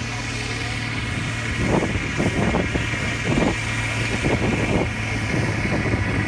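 Diesel tractor engine running hard under load as it drags a tractor-pull sledge, a steady low drone. Irregular low thumps join it from about two seconds in.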